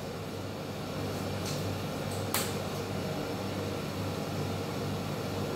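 A steady low mechanical hum, with two light clicks about one and a half and two and a half seconds in.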